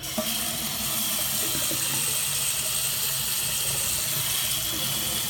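Bathroom tap turned on, water running steadily into the fixture and down the drain, then cut off at the end.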